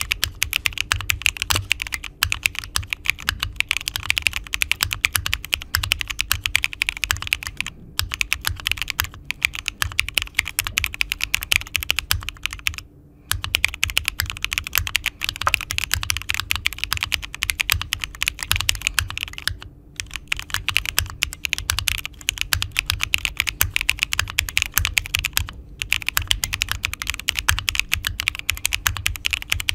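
Monsgeek M1 aluminium mechanical keyboard kit being typed on fast in a sound test, a dense run of key clacks with brief pauses about every five to six seconds.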